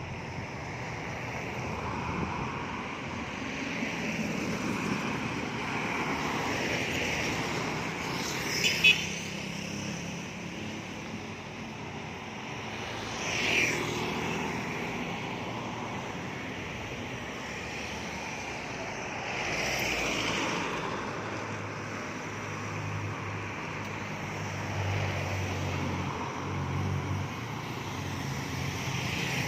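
Steady road and engine noise from travelling through street traffic, with brief louder swells of passing vehicles about a third of the way in, near the middle and about two-thirds in.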